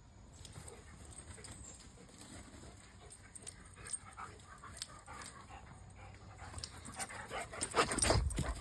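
A puppy panting and moving about at play, with scattered small clicks and rustles, growing louder about seven seconds in.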